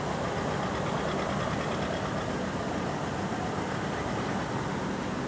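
Steady, unbroken drone of running machinery, with a low hum under a wide noise.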